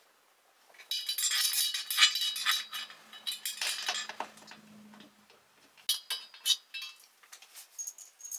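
Metal clinking and rattling from chair-assembly hardware: a gold metal chair leg, bolts and an Allen key handled against the seat frame. It starts about a second in, is busy for a few seconds, then comes as sharper separate clinks near the end.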